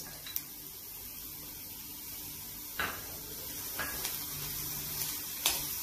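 Chopped cabbage and capsicum sizzling in hot oil in a steel wok, a steady hiss, while a metal spoon clinks and scrapes against the pan a few times.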